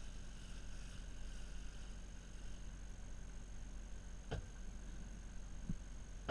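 Boat engine running, a steady low drone, with a faint steady high whine above it. A sharp click sounds about two-thirds of the way through, followed by a softer low knock.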